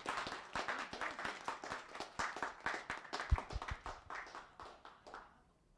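Audience clapping in applause, the claps thinning out and dying away about five seconds in.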